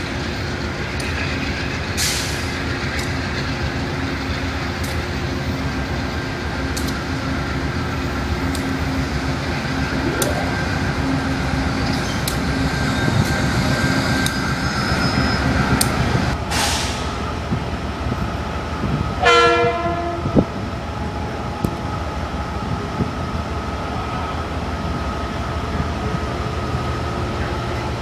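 GE Genesis diesel locomotive running as it pulls a passenger train past, a steady low engine rumble, with one short horn blast about two-thirds of the way in.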